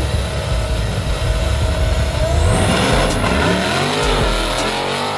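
Two drag-racing street cars at the start line, engines revving hard, then launching at full throttle and accelerating away. Their engine pitch climbs and drops again as they shift up through the gears.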